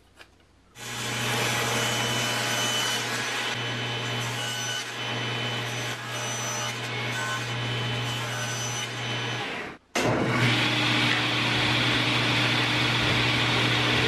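Table saw running and cutting a small wooden block: the saw starts about a second in with a steady motor hum under the noise of the blade in the wood. The sound breaks off for an instant about ten seconds in, then runs on.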